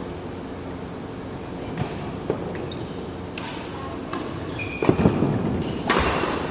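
Badminton rally in a reverberant indoor hall: a string of sharp racket strikes on the shuttlecock and other hits on court, the loudest about five and six seconds in, each echoing off the hall.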